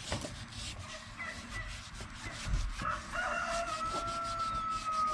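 A rooster crowing: one long drawn-out call starting near the three-second mark and sagging slightly in pitch toward the end. Light rubbing and clicking underneath.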